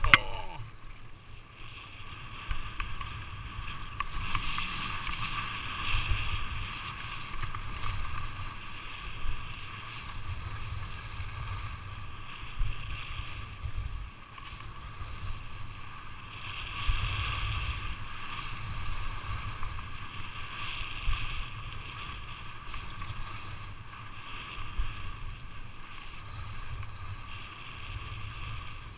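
Skis sliding and carving on snow: a steady swishing scrape that swells and eases every few seconds. Underneath is a low rumble of wind rushing over the microphone.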